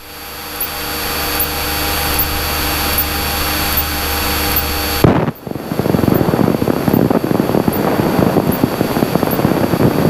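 Cessna light aircraft's single piston engine and propeller droning steadily in flight, heard from inside the cabin. About five seconds in, it cuts abruptly to a louder, uneven rushing noise, like wind buffeting the microphone.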